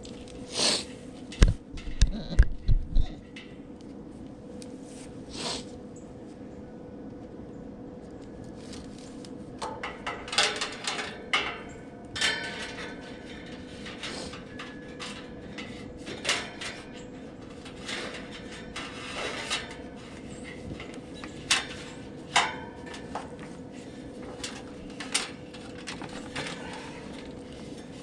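Hands working on condenser fan motor wiring with electrical tape: scattered clicks, rustles and small knocks, with a few louder knocks in the first few seconds, over a steady faint hum.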